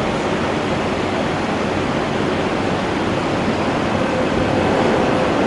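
Steady rushing noise on a metro station platform beside an MTR electric train standing with its doors open. A faint steady tone comes in about four seconds in.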